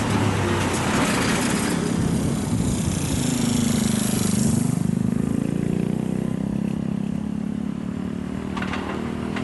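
JR West 223 series electric train approaching along curved track: steady running noise with a motor hum that dips in pitch near the middle, and a hiss that swells and fades over the first half.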